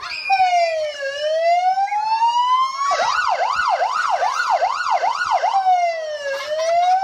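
Police car siren sounding loudly: a slow wail that dips and climbs, switching about three seconds in to a fast yelp of about two and a half sweeps a second, then back to the slow wail near the end.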